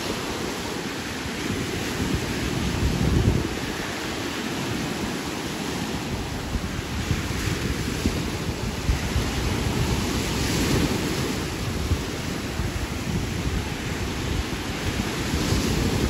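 Small waves breaking and washing up on a sandy shore, with wind buffeting the microphone in gusts, strongest about three seconds in.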